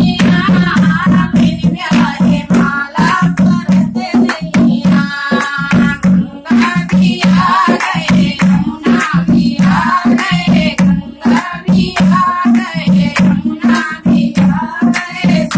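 Music: voices singing a melody over a steady, quick percussion beat.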